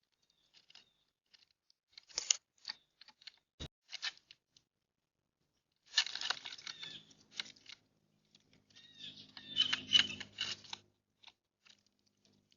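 Small birds at a seed feeder: irregular bursts of scratchy pecking and rustling, with a few short chirps about ten seconds in.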